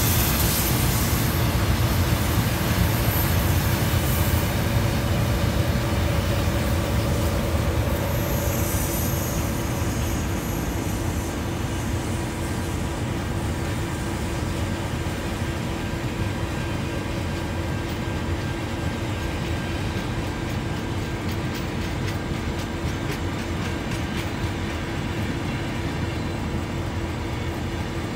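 A train running past with a steady rumble that slowly fades as it draws away.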